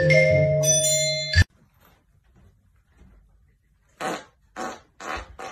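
Xylophone-like mallet music that cuts off about a second and a half in; after a pause, three short fart sounds about half a second apart.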